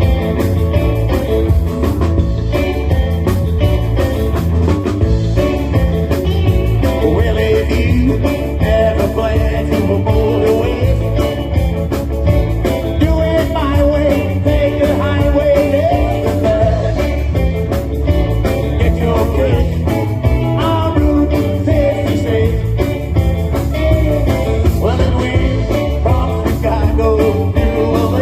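Rock and roll band playing, with a steady beat, bass and guitar, and a wavering lead line in the middle of the passage.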